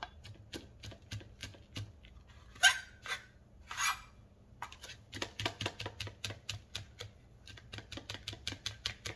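Chef's knife chopping fresh rosemary on a plastic cutting board: scattered taps at first, then a quick even run of about four or five chops a second in the second half. Two brief louder rasps come a little before the middle.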